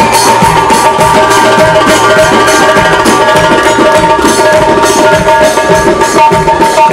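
Live band music in an instrumental passage: a steady hand-drum rhythm under long held keyboard notes.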